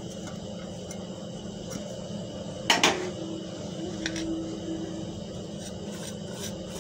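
Stainless-steel bowls and plates knocking and clinking as they are handled, with two sharp knocks close together about three seconds in and a few lighter clinks after, over a steady low hum.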